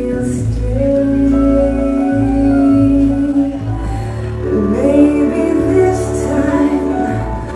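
A song with a woman singing long, held notes over a steady low bass line.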